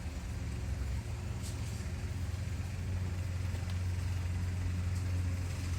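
A steady low motor hum, slowly getting louder, with a few faint light clicks.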